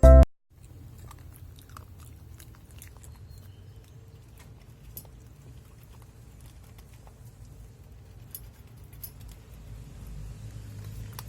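A beagle chewing: faint, scattered small clicks and mouth sounds over a low, steady rumble.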